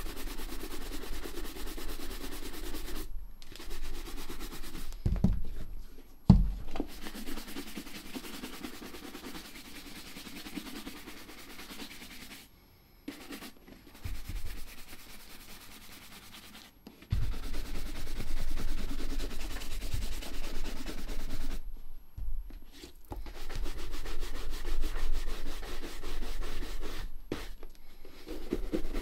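Stiff bristle shoe brush scrubbed briskly back and forth over the black Klondike leather of a Red Wing 9874 boot, working clear cream into the leather. The brushing stops and starts, with two dull thumps about five and six seconds in, and grows louder from about seventeen seconds.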